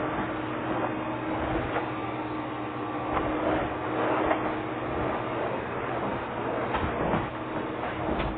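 Vacuum cleaner running with a steady hum, with a few short knocks and clicks over it.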